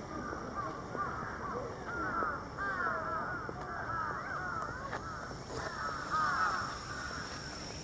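Birds calling continuously: clusters of short, arched, repeated calls overlapping one another, as from a flock.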